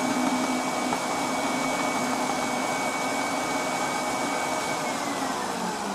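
Stand mixer's motor running at steady speed with its balloon whisk beating cake batter, then winding down about five seconds in as it is switched off.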